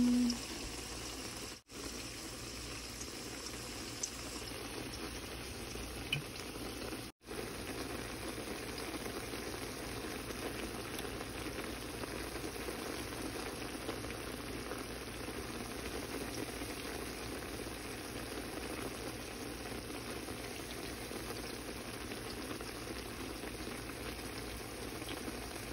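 Sliced mushrooms and onions bubbling steadily in their own liquid in a stainless steel skillet, simmering as the liquid cooks down and evaporates. The sound cuts out for an instant twice early on.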